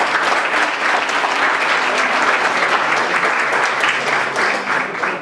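A roomful of people applauding steadily, fading off near the end.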